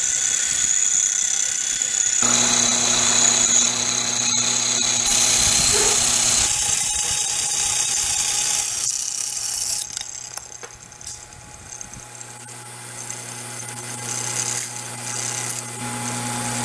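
Taig CNC milling machine's spindle running, its end mill cutting Corian countertop material: a steady high whine over cutting noise. The sound shifts abruptly several times and drops quieter for a couple of seconds in the middle.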